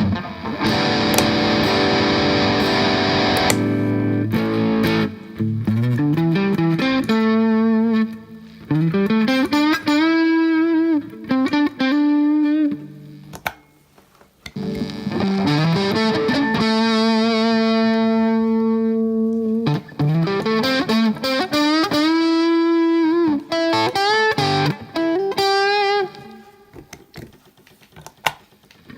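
Electric guitar played through an overdrive pedal: a chord struck and left ringing for a few seconds, then bluesy single-note lead lines with rising string bends and held notes, with a short break about halfway through.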